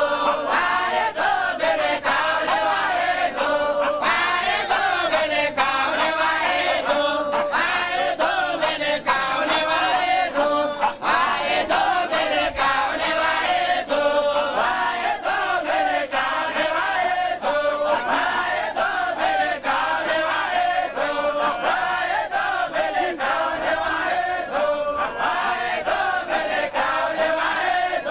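A group of men chanting together in unison, a continuous rhythmic devotional chorus of male voices typical of a Sufi dhikr.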